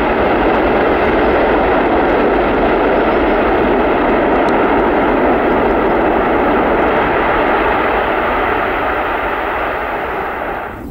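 Boeing C-17 Globemaster III's four turbofan jet engines running loud as the aircraft rolls along the runway: a steady rushing jet noise that fades toward the end as it moves away.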